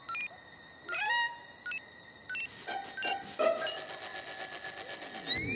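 Cartoon countdown-timer gadget beeping: short electronic beeps a little over half a second apart, speeding up about two and a half seconds in until they run together into fast continuous beeping, with a rising whoosh starting right at the end.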